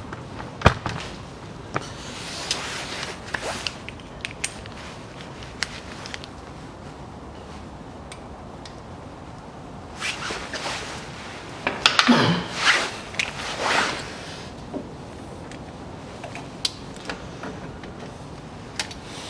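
Hand-tool and handling noises at the front differential's fill plug: scattered sharp clicks and knocks, with a longer stretch of scraping and rustling about ten to fourteen seconds in.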